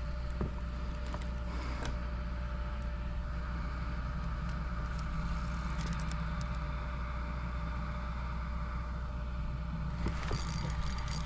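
A steady low hum like a small motor running, with a few faint clicks and taps.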